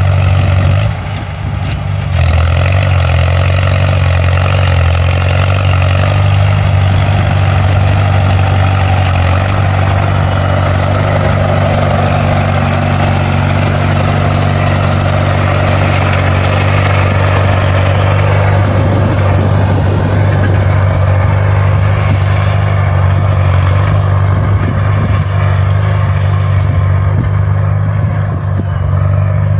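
A vehicle engine running steadily and loudly, with a brief dip in level about a second in.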